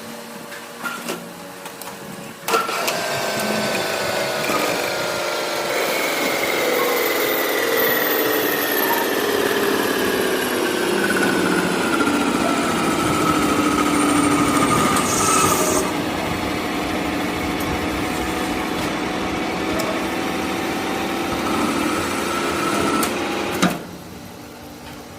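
Machine tool cutting the weld bead on a steel shaft: a steady, loud machining whine with several tones that slowly fall in pitch, then hold steady, before the cut stops abruptly near the end, leaving the machine's quieter running hum. A few light clicks come before the cut starts.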